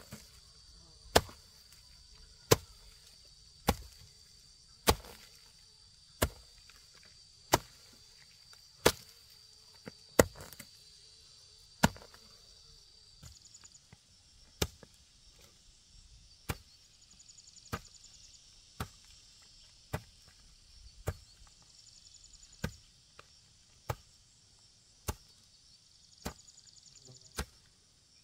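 A hand tool striking repeatedly in a steady rhythm, about one sharp stroke every second and a quarter, with a short pause about halfway and softer strokes after it. Insects trill steadily underneath.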